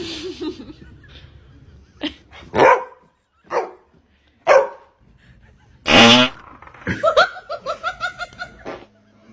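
A dog barking and vocalizing in a string of short calls, the loudest about six seconds in. Near the end comes a quick run of rapid pulsed calls.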